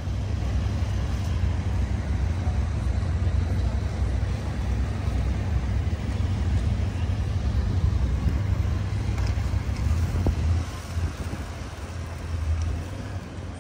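Outdoor city ambience beside a busy street: a steady low rumble, heaviest in the bass, with a light wash of traffic noise above it.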